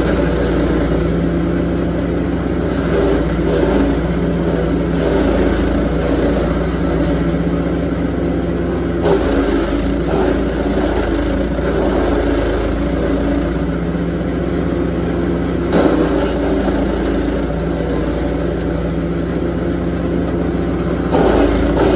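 Lumag Rambo HC10 chipper shredder's petrol engine running steadily while branches are fed into the hopper. Louder bursts of chipping come about nine seconds in, around sixteen seconds, and again near the end.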